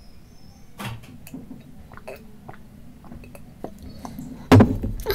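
Drinking lassi from a glass bottle: gulps and swallows with small wet mouth clicks, then one louder knock about four and a half seconds in.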